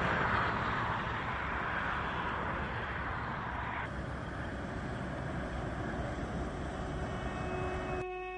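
Road traffic noise: a steady rush of lorries and cars passing on a nearby road.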